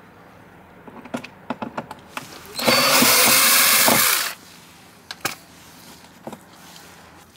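Power drill-driver backing out a Phillips screw under a car's rear bumper. It runs continuously for about a second and a half, its pitch wavering, after a few short clicks.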